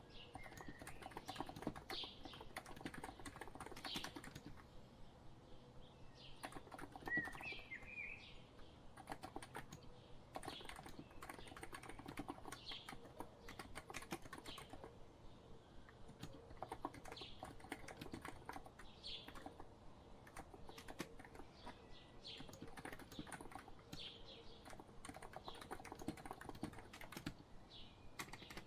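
Continuous typing on a COX Empress electro-capacitive keyboard, a steady fast run of keystrokes, with birds chirping in the background, most clearly about seven seconds in.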